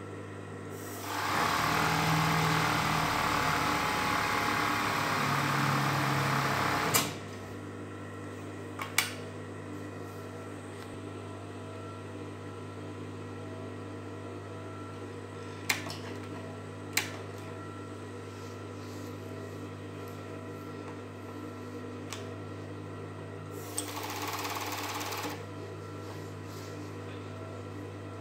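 Five-thread overlock (serger) sewing machine running at speed for about six seconds, then a second short run of about a second and a half near the end. Between runs there is a steady electric hum with a few sharp clicks.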